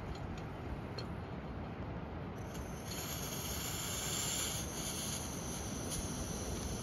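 Liquid-fuel backpacking stove: a few faint ticks as the priming flame dies, then about two and a half seconds in a steady high hiss starts as the fuel valve is opened and the burner runs. A low rumble sits underneath throughout.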